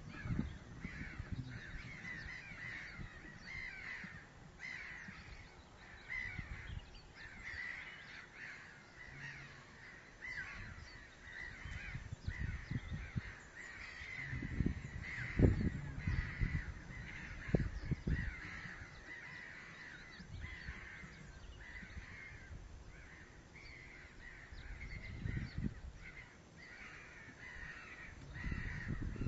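Osprey at the nest giving a long series of short, repeated chirping calls, with a few low thumps and rumbles on the nest microphone.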